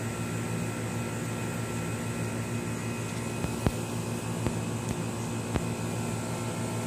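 Steady low machine hum with several fixed pitches, and about five light taps of fingers on wooden deck boards about halfway through.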